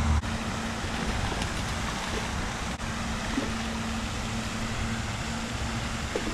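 Steady outdoor background noise with a faint low hum, and no distinct event standing out.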